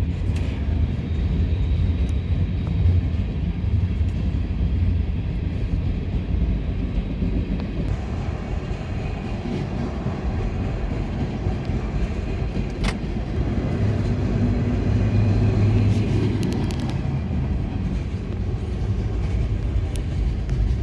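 Freight train's cars rolling past: a steady low rumble of steel wheels on rail, with a sharp click about thirteen seconds in.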